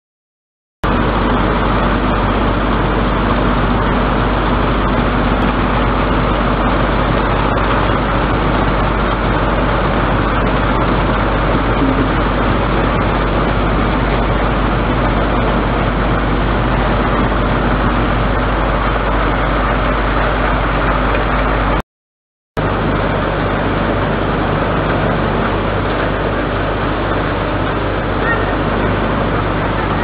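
Steady machinery noise of a running canning production line: chain conveyors carrying tin cans, with a constant low hum under a dense even din. The sound cuts out for under a second about three-quarters of the way through, then resumes with a slightly different hum.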